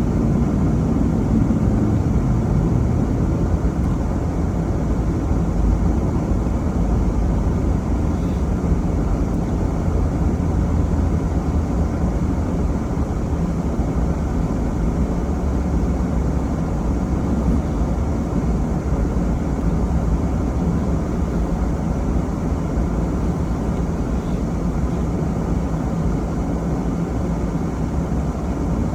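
A vehicle driving at a steady pace, giving a continuous low rumble of engine and road noise.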